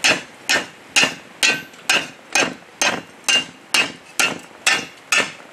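A hammer beats the bent steel blade of a post hole digger against a small cast-iron anvil, straightening it. The blows come steadily, about two a second, and each gives a short metallic ring.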